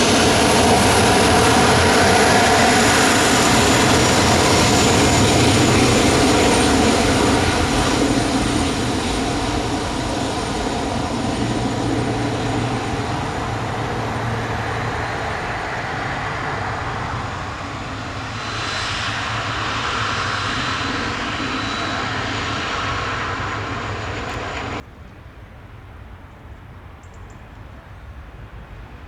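Boeing 737-400 jet engines (CFM56) running loud and steady, then fading gradually. The sound cuts off suddenly near the end, leaving a much quieter background.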